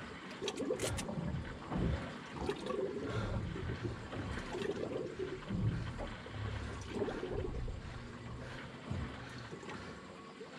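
Water lapping and trickling against the hull of a small boat on open sea, with a few light clicks about a second in.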